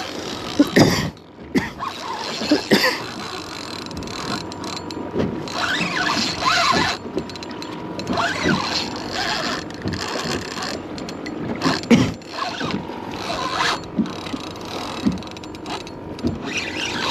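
Fishing reel and rod working under a heavy fish: the reel is cranked and ratcheted in irregular spells, with knocks and handling noise against the chest-mounted camera. From about halfway through, a faint steady whine runs under it.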